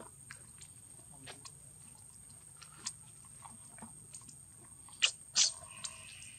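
Monkeys cracking and chewing seeds: small scattered crunchy clicks, with two louder sharp cracks about five seconds in.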